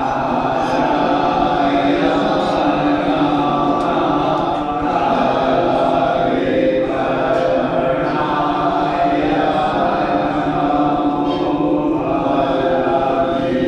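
Many voices chanting Hindu mantras together in long held notes, a steady and unbroken group chant.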